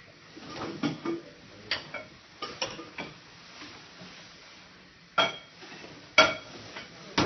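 Scattered clinks and clanks of dishes and metal utensils being handled while plates are dressed. The two loudest clanks, about five and six seconds in, ring briefly like metal.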